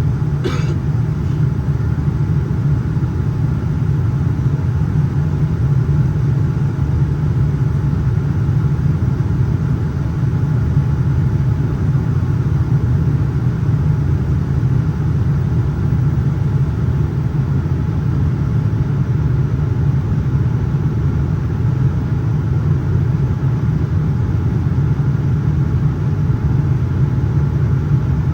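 Steady cabin noise inside a Boeing 787-9 in flight: a low rumble of engines and airflow, with faint steady tones above it. A brief sharp sound about half a second in.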